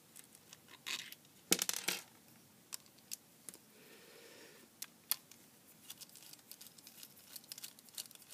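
Small precision screwdriver undoing the nuts and bolts of a plastic turbine case: scattered light clicks and taps of the tool and the small metal bolts and nuts being handled and set down, with a run of quick small ticks near the end.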